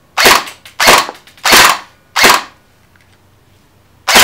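Elite Force G36 Elite electric airsoft rifle with electronic blowback firing in two-round burst mode. Four short bursts come about two-thirds of a second apart, then a pause, then another burst near the end.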